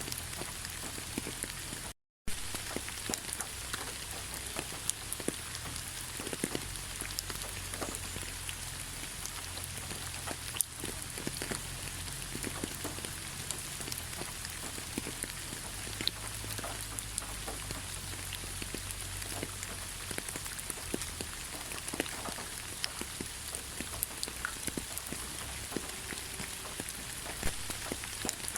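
Steady rain falling in a forest: an even hiss with many separate drops ticking close by. The sound cuts out completely for a split second about two seconds in.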